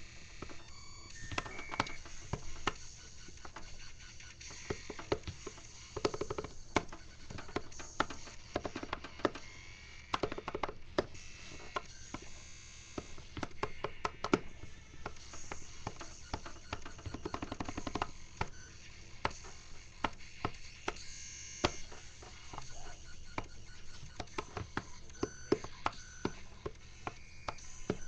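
Fingers tapping quickly on the rubber pads of a button-grid MIDI controller: an irregular stream of soft clicks and knocks, some in fast runs.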